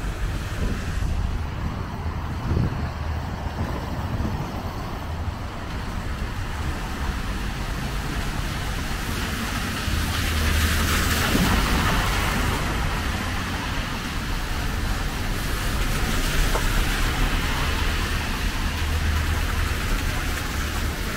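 Road traffic on a rain-soaked street: cars driving past with tyres hissing on the wet asphalt over a low rumble. The hiss swells as a car passes close by about ten seconds in, and again later.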